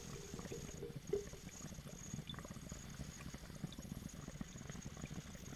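Faint, steady bubbling of water in a glass dab rig as it is drawn on in one long inhale.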